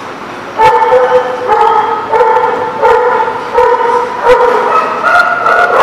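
A dog barking repeatedly in drawn-out, pitched barks, about two a second, starting about half a second in and going slightly higher in pitch near the end.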